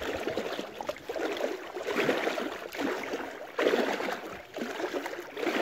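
A pedal kayak's flipper-style fin drive churning and splashing the water in repeated surges, about one a second. The surges are loud: the angler is pedalling hard to hold the kayak in position.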